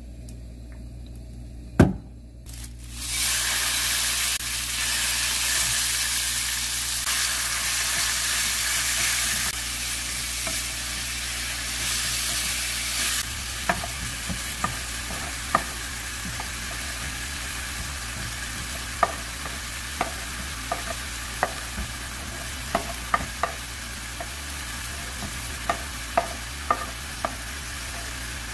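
A sharp knock, then hot oil in a nonstick frying pan sizzling loudly as red-seasoned pork fries in it. Around halfway the sizzle quietens as sliced onion, king oyster mushroom and leek go into the pan, and light clicks and scrapes of a wooden spatula stirring take over.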